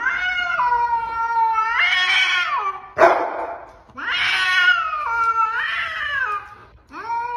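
A longhaired cat yowling at another cat: two long, wavering yowls with a short hiss between them about three seconds in, and a third yowl starting near the end. This is a defensive warning in a cat standoff.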